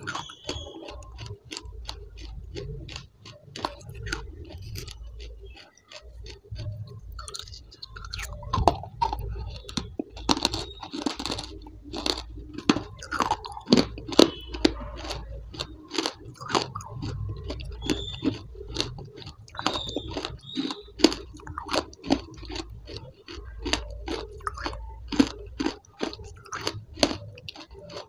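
A person chewing hard, crunchy chunks close to the microphone: a dense run of sharp crunches with softer chewing between them, getting busier and louder from about eight seconds in.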